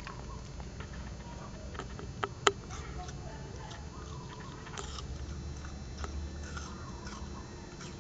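A puppy gnawing and biting at a green apple: scattered sharp crunches, the loudest two close together about two and a half seconds in, over a low steady hum.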